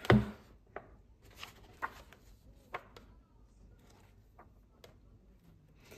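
A knock at the start, then scattered faint paper rustles and light taps as an activity book is handled and its pages leafed through.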